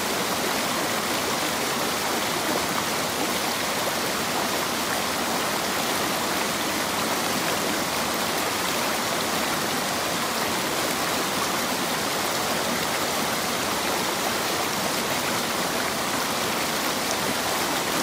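Spring-fed mountain stream rushing and splashing over rocks and small cascades below a waterfall: a steady, even rush of water.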